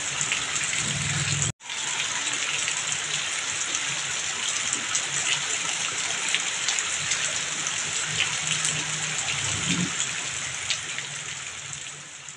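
Heavy rain pouring steadily, with streams of water running off a roof edge and a dense patter of drops. The sound cuts out for a moment about a second and a half in, then fades away near the end.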